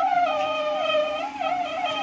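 Band sawmill blade whining as it cuts teak, its high pitch wavering and dipping with the load, over the steady hum of the mill's drive.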